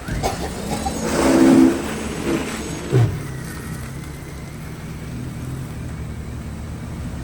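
A motor vehicle sounds loudly for under a second, swelling up and then falling away, followed by a short knock and then a steady low engine hum.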